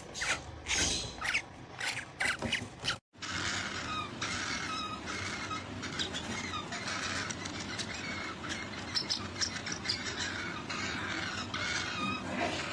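Parrot squeaking and squawking: short sharp calls, then a brief dropout about three seconds in, followed by a run of harsh, raspy squawks.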